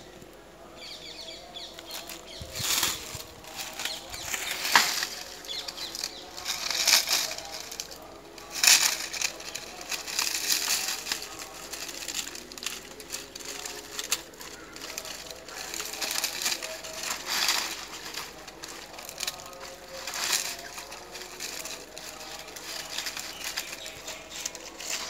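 Dry coconut palm fronds rustling and crackling in irregular bursts as a small dog moves about on them and tugs at a frond stem with its teeth.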